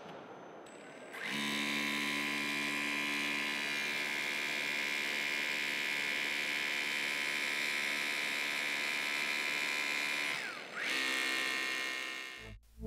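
Weber E-Force 2 battery-powered drive unit on an RSU 200 hydraulic rescue cutter running: a steady electric motor and pump whine starting about a second in and holding for about nine seconds. It briefly drops in pitch and stops, then runs again for a second or so near the end.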